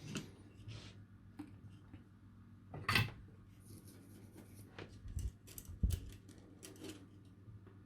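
Scattered light clicks and taps of small electronic kit parts being handled on a bench: LEDs, their wire legs and the circuit board. The sharpest click comes about three seconds in, with more near five and six seconds.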